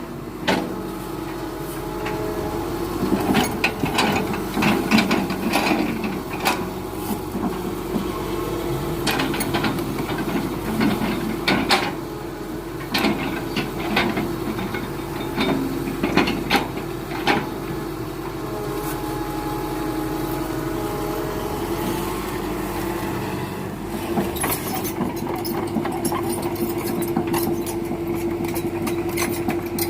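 Excavator's diesel engine running steadily, with many sharp knocks and clanks from the machine at work.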